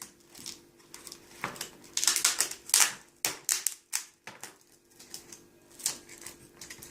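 Irregular clicks and short crackling scrapes as the cracked glass touch screen of a Peugeot 208 sat-nav unit is worked free of its double-sided adhesive, a cluster of them in the middle.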